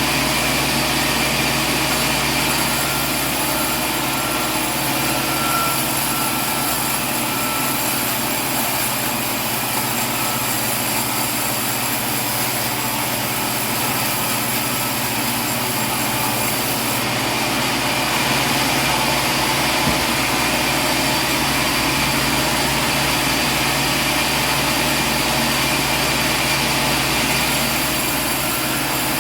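Sawmill machinery running steadily: a continuous loud mechanical drone with a constant hum and a faint whine, with no cuts or pauses.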